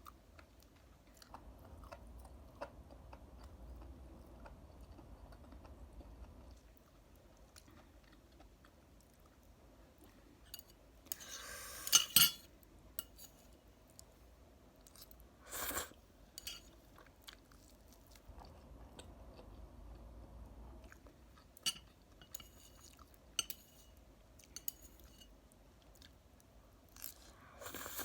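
A person chewing a mouthful of spicy carbonara ramen noodles close to the microphone, with scattered small clicks and a loud sharp double clink about halfway through.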